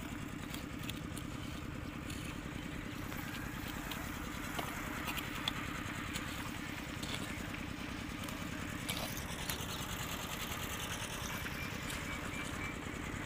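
A steady low mechanical drone, like an engine running, with a few faint knocks scattered through it.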